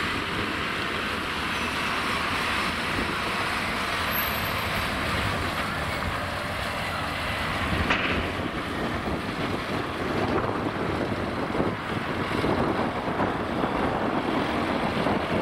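Loaded Scania P440 6x6 dump truck driving past, its six-cylinder diesel engine running steadily under the rolling noise of its tyres. The sound changes abruptly about halfway through, becoming rougher and heavier in the low end.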